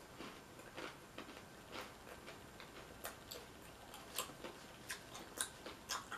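A person chewing a mouthful of taco with her mouth closed, close to the microphone: faint, irregular wet clicks and small crunches, a few of them a little louder.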